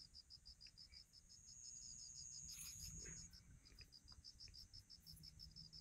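Faint night insects: a cricket chirping in a steady, even pulse of about six high chirps a second, with a thin continuous high buzz joining for a couple of seconds in the middle.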